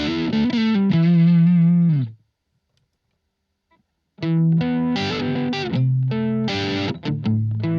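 Distorted electric guitar through a Blackstar ID:Core Stereo 40 amplifier. A chord is held for about two seconds with a wavering shimmer, then cut off. After about two seconds of silence, the playing starts again with rhythmic chords.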